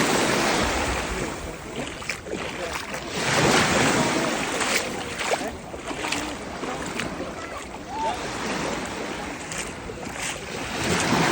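Sea waves breaking and washing, rising and falling in surges, louder near the start, about three and a half seconds in, and again near the end.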